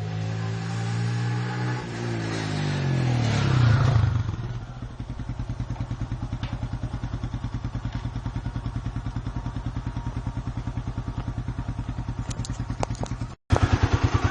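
Yamaha YZF-R125 single-cylinder 125 cc engine on a fly-by: its pitch rises to a peak about four seconds in and then falls away as the bike passes. After that comes a steady, fast pulsing engine beat, which breaks off briefly near the end and then returns louder.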